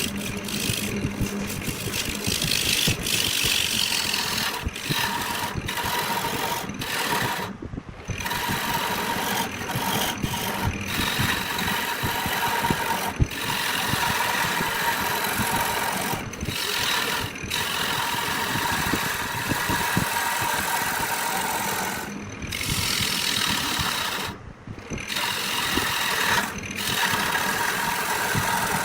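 Wood lathe running steadily while a turning tool works the spinning milk flower wood, a dense rasping hum with a faint steady whine. The sound breaks off briefly a few times.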